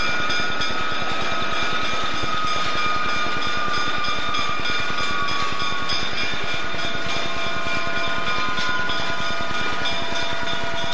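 Diesel switcher locomotive running as it hauls a coach and caboose slowly past, its engine giving a steady rapid low pulsing. Several high steady tones slide slowly down in pitch through it.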